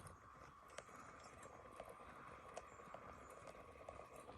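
Faint, scattered clicks and clacks of rocks under a 1/10 scale RC rock crawler as it climbs, over a faint steady high hum.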